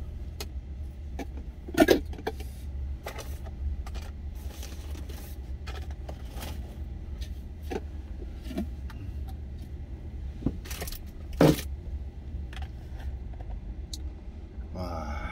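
Plastic lunch containers and lids being handled and opened: light clicks and clatter with two sharp, louder knocks, about 2 s and 11.5 s in. A steady low hum of the idling truck engine runs underneath.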